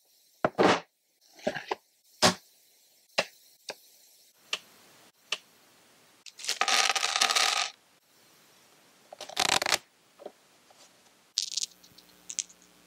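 Settlers of Catan board-game pieces and cardboard tiles being set down on a wooden tabletop: a run of short sharp clicks and knocks. A longer clatter comes about six and a half seconds in and a shorter one near nine and a half.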